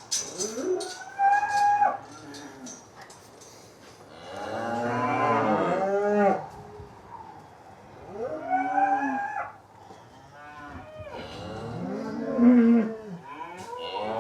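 Several cattle mooing in turn, about five long calls at different pitches, some overlapping, the loudest about twelve and a half seconds in.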